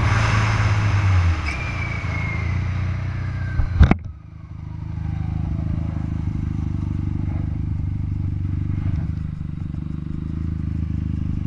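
Snowmobile engine running at speed, its whine falling in pitch, with one sharp loud impact about four seconds in. After the impact the engine sound is duller and quieter and keeps winding down.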